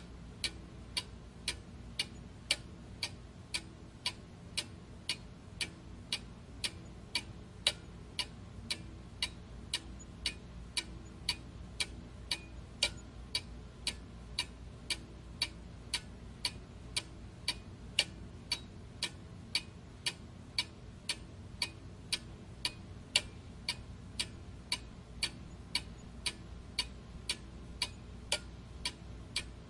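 Steady, even ticking, about two ticks a second, over a faint low hum.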